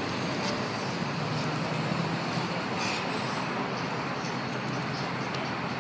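Steady hum of city street traffic.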